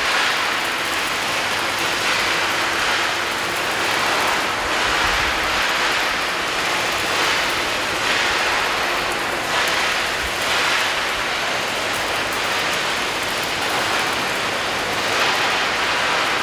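Robotic arc welding on steel plate: the welding arc crackling and hissing steadily, swelling a little now and then.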